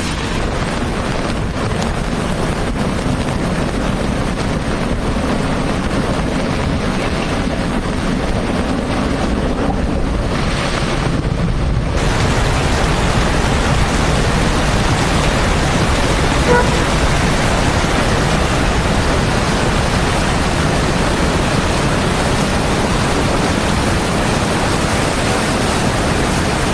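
Heavy tropical downpour, a steady dense hiss of rain that grows fuller and slightly louder about twelve seconds in.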